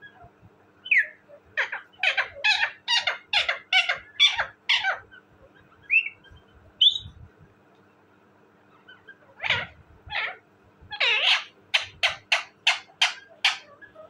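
Indian ringneck parakeet calling in fast runs of sharp, repeated calls, about three a second. One run comes a second or two in, then a few single chirps, then another run near the end.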